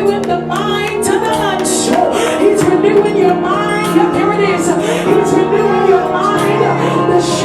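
Church worship music: held keyboard chords with a woman's voice singing over them in wavering, gliding lines.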